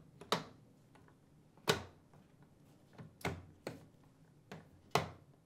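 Plastic retaining tabs of a dishwasher control panel clicking into the slots of the outer door panel as the panel is pushed into place: five sharp clicks, the loudest a little under two seconds in.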